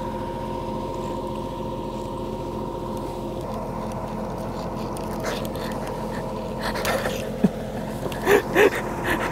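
Steady drone of a generator powering a bright work light, a hum made of several steady tones. A few brief voice sounds come in near the end.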